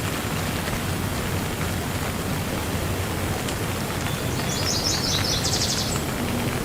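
Steady rain falling. A bird gives a short, rapid, high-pitched trill over the rain about four and a half seconds in.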